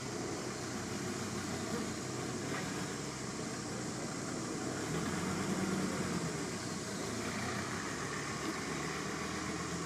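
Steady low hum of a running motor under a constant background noise.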